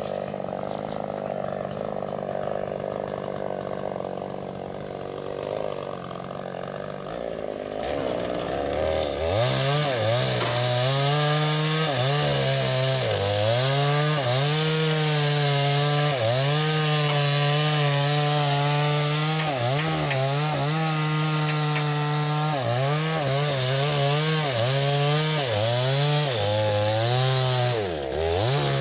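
Two-stroke chainsaws cutting sengon logs. For the first eight seconds or so a chainsaw runs steadily and fairly quietly. Then, about nine seconds in, one opens up to full throttle, and its pitch dips again and again as the chain bogs down in the wood.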